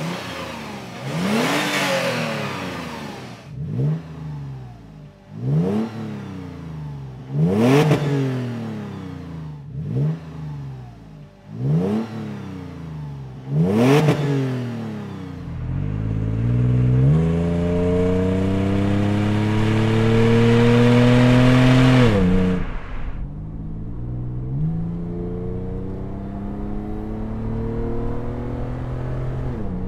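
Toyota 4Runner's 4.0-litre V6 free-revved at a standstill in about six sharp blips. These are heard outside at the tailpipe, first through the stock exhaust and then through a Magnaflow Overland Series cat-back, which gives a deeper tone without being obnoxious. About halfway through the sound moves to the cabin under hard acceleration: the revs climb steadily, drop at a gear change, and climb again over road rumble.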